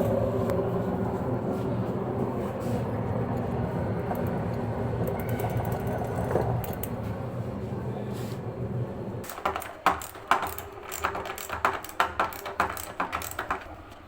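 A small motor hums steadily at one pitch for about nine seconds, then stops. A quick run of clinks and knocks follows as metal parts and tools are handled during washing machine disassembly.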